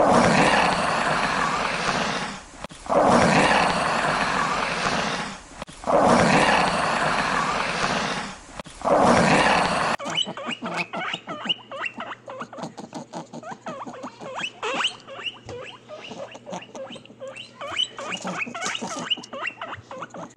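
Three long, loud, noisy blasts, each about two and a half seconds, with short breaks between. From about halfway, guinea pigs at a food bowl squeak and chirp in quick, rapid succession, with small clicks of chewing.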